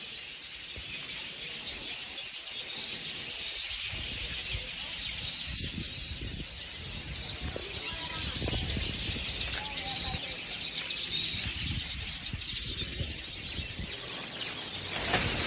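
A dense chorus of many small birds chirping at once as they gather to roost for the evening, a continuous overlapping chatter with a low rumble underneath.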